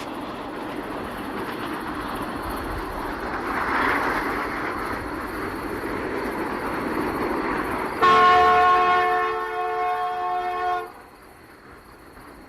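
A train running with a steady rumble, then about eight seconds in its horn sounds a chord of several tones for about three seconds and cuts off suddenly.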